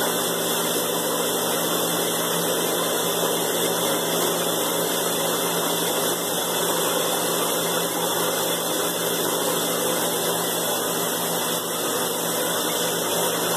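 Bathtub tap or shower running steadily, a continuous rush of water into the tub.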